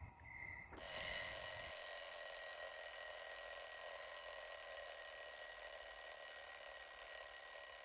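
An alarm clock ringing, starting abruptly about a second in and carrying on steadily. Before it comes a brief, faint pulsing chirp.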